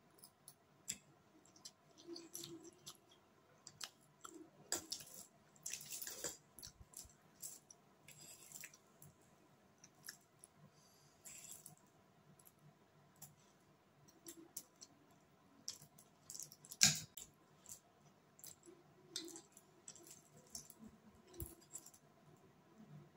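Eating sounds: a fork clicking and scraping against a foil-lined plate as chow mein noodles are twirled up, with chewing between. Irregular clicks throughout, the loudest about 17 seconds in.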